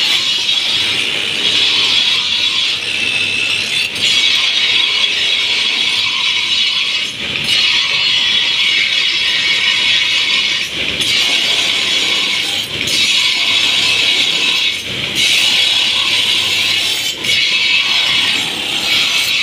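A steel sword blade being ground to an edge on a spinning abrasive grinding wheel: a steady, high grinding hiss in repeated passes, broken by short gaps every two to three seconds as the blade is lifted and set back against the wheel.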